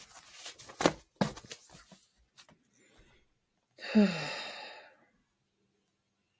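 A person sighs: one breathy exhale with a falling pitch, about four seconds in. Two sharp clicks or taps come about a second in.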